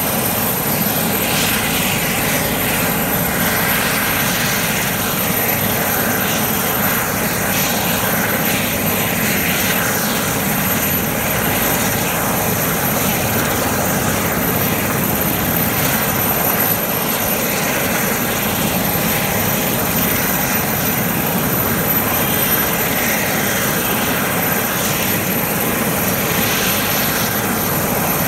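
Large heavy-lift helicopter running on the ground at idle, its engines and slowly turning rotors making a steady noise with a thin high whine over it.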